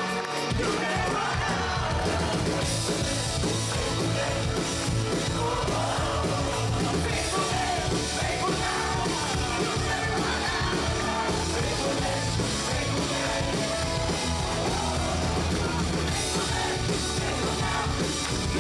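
Live worship band playing loud, full-band rock-style praise music with singing.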